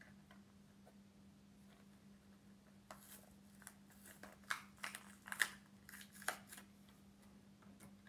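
Toy packaging being crinkled and torn open by hand: a run of sharp crackles and clicks from about three seconds in until just past six seconds, over a faint steady hum.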